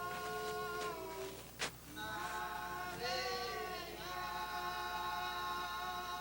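Choir singing a slow hymn in long held chords that change every second or two, with one short sharp click about a second and a half in.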